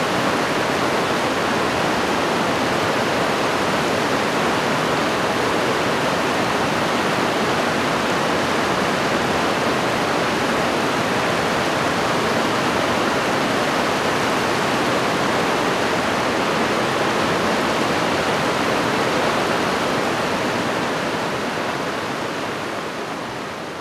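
Fast, shallow mountain stream rushing over rocks: a steady rush of water that fades out near the end.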